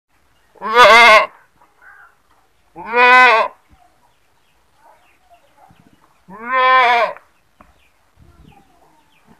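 A goat screaming: three loud bleats, each under a second long and a few seconds apart, each rising and then falling in pitch.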